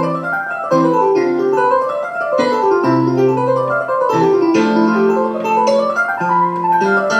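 Piano music: a flowing line of quick notes over held bass notes that change about every second.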